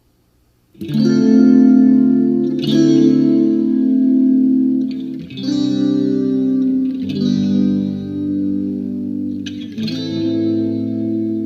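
Electric guitar played through a Waldman Super Chorus Ensemble pedal: five strummed chords, each left to ring with a chorus shimmer, starting just under a second in.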